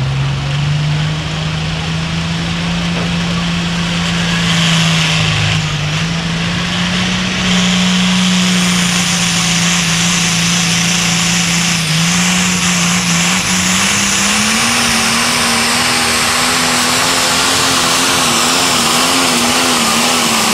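Limited Pro Stock pulling tractor's turbocharged diesel engine running flat out under full load as it drags the weight-transfer sled, loud throughout. Its pitch climbs steadily as it pulls, then wavers up and down near the end as the sled's load builds.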